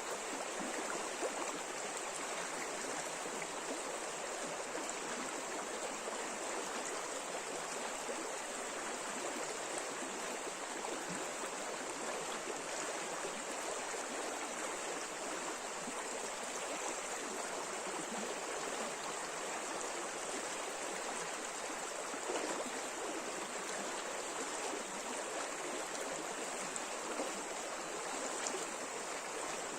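River water flowing over shallow rapids, a steady, even rush of water with no pauses.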